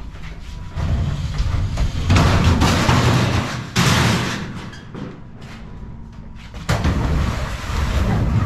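Empty steel file cabinets scraped across a box truck's wooden floor and shoved off the back onto a scrap pile, with a loud metal crash about four seconds in. A second scrape and bang starts near the end.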